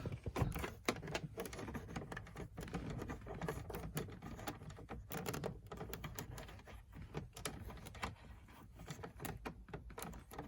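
Scattered light clicks, taps and small rattles of hands handling a car's plastic glove box and the extra fastener added to hold it shut, as the fix is wound back into place.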